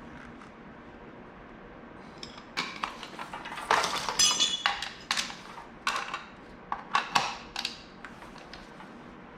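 Small hard metal parts clinking and knocking together in a quick irregular series, with one brief metallic ring.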